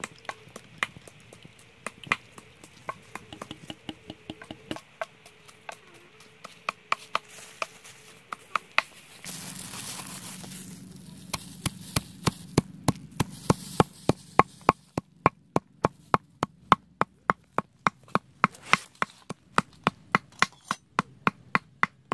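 Wooden pestle pounding chillies and garlic in a stone mortar: a steady run of sharp knocks, about two a second at first, then faster (about three a second) and louder from about eleven seconds in. A brief rush of hiss comes around nine seconds in.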